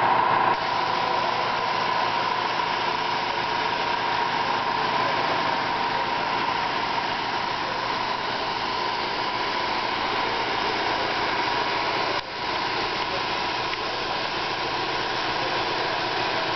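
Steady mechanical hum and hiss of spray-shop equipment running, with a brief dip about twelve seconds in.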